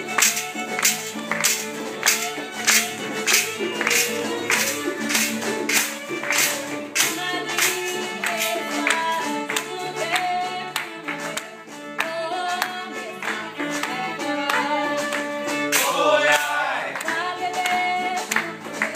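Acoustic guitar and fiddle playing a blues tune, with a voice singing over them and hands clapping along on the beat, about two claps a second.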